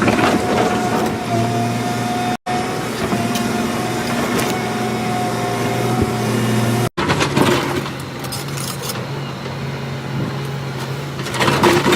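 Motor vehicle engine running with a steady hum, broken off abruptly twice and followed by rougher, noisier traffic or machinery sound.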